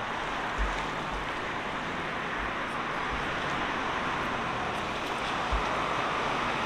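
Steady, even rush of downtown street traffic, with a couple of brief low thumps.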